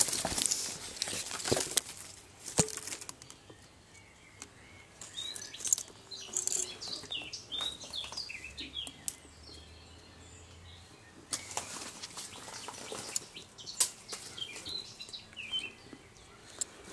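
Rustling and crackling of leaves and twigs as someone pushes through undergrowth on foot, in bouts at the start and again from about eleven seconds in. Small birds chirp in short phrases about five seconds in and again near the end.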